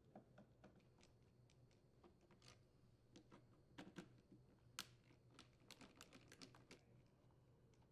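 Faint, irregular clicks and ticks of a Torx screwdriver backing screws out of a plastic hedge trimmer handle.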